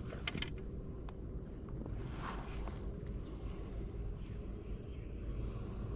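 Outdoor ambience: a steady low rumble with a high, evenly pulsing insect trill, a few light clicks in the first second and a brief rustle about two seconds in.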